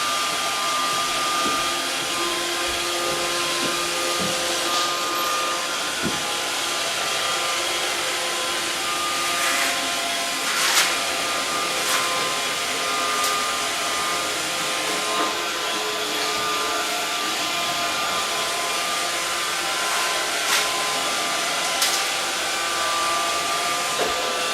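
Roomba robot vacuum running: a steady whirring hiss with a thin motor whine, broken now and then by short, sharp knocks.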